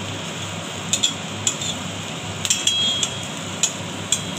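Metal spatula scraping and clinking against a steel wok about seven times as scrambled egg is broken into small bits, over a steady sizzle of frying.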